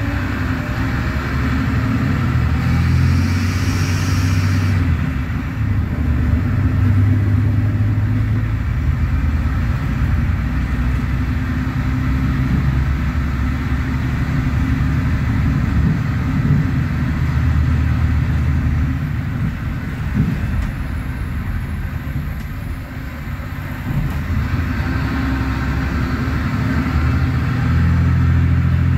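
Mercedes-Benz OM936LA six-cylinder diesel of a city bus, through its Voith DIWA.6 automatic gearbox, running under load as the bus climbs, heard from inside the passenger cabin. A brief hiss comes about three seconds in, and the engine eases off briefly a little past the twenty-second mark.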